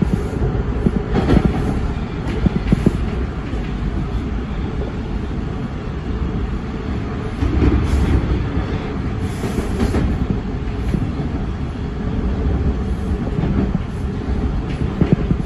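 A TTC subway train heard from inside the front car as it runs along the track: a steady rumble of wheels on rail, with occasional clacks as the wheels pass over rail joints.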